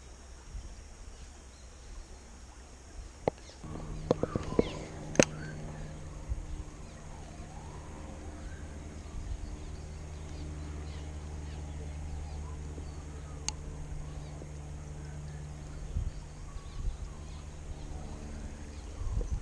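A steady, low mechanical hum, like a motor running, comes in about four seconds in and holds at an even pitch, with a few sharp clicks near its start and one more about midway.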